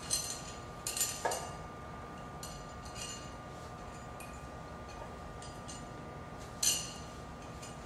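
Metal screws clinking as they are set into the holes of a triaxial cell's top plate: a handful of short, light metallic clinks, the loudest near the end.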